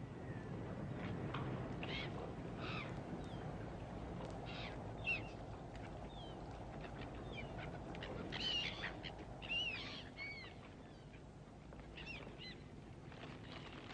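Gulls calling, short cries that rise and fall, scattered throughout and thickest in a cluster about two-thirds of the way through, over a steady low rumble.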